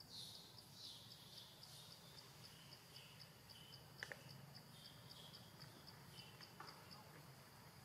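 Faint forest ambience: an insect ticking steadily at about four ticks a second, with scattered soft chirps and a single sharp click about four seconds in.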